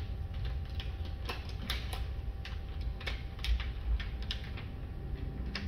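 Scattered small clicks and ticks, about two a second and irregular, from a plastic tint install tool and window film being worked behind the rubber gasket of a UTV door window, over a faint steady hum.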